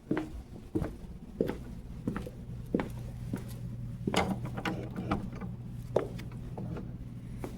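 Boot heels clicking on a hard floor in walking steps, about three every two seconds, over a steady low hum.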